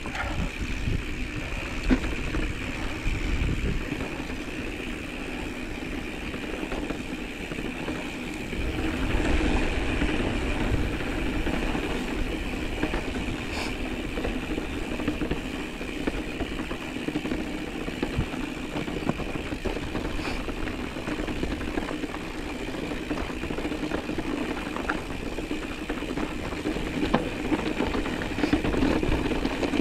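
Mountain bike riding over a dirt and rocky trail: a steady rolling rumble and rattle from the tyres and bike on the ground with a constant hum. It gets louder and rougher about nine seconds in and again near the end.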